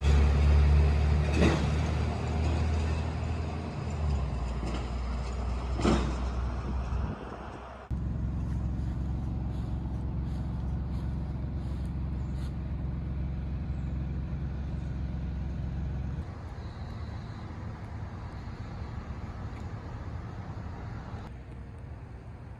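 Street traffic rumble, loudest in the first seven seconds, with two brief sharp sounds in that stretch. It then drops to a quieter steady hum.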